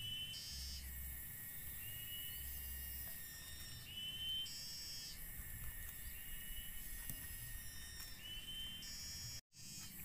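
Forest insects calling in a steady high chorus, with a short rising chirp that recurs every couple of seconds. The sound cuts out for a moment near the end.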